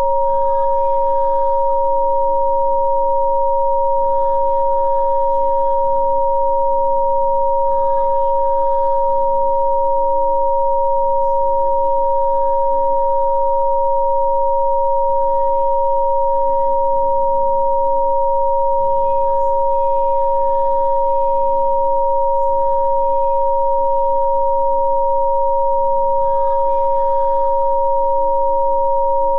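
Two steady electronic sine tones held together, one a little above 500 Hz and one just below 1 kHz: a Rife-style 'healing frequency' session. Under them sits soft ambient music whose chords change every few seconds.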